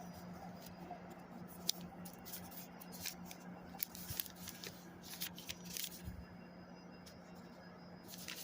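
Scattered faint clicks and rustles, like a recording device being handled, over a steady low hum.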